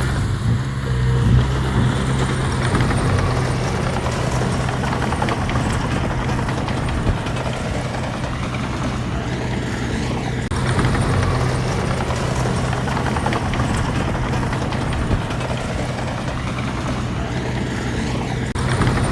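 Diesel engine of heavy earthmoving machinery running steadily with a low hum.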